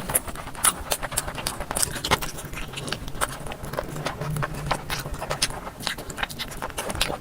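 Close-miked chewing and mouth sounds of someone eating biryani: an irregular run of sharp clicks and smacks, several a second.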